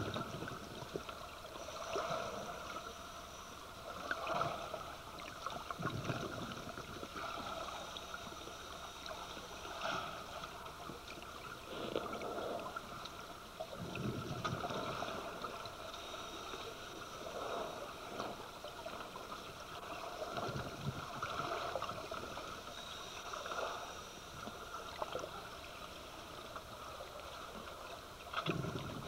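Scuba diver's breathing through a regulator, recorded underwater: irregular gurgling rushes of exhaled bubbles every few seconds over a steady watery hiss.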